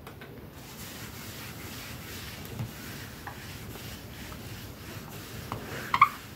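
Whiteboard eraser rubbing steadily back and forth across a whiteboard, wiping off marker writing. A short sharp sound comes near the end.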